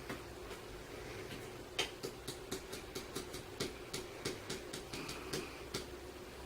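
English mastiff snoring in its sleep: a steady low drone, with a run of quick sharp clicks, about two or three a second, through the middle.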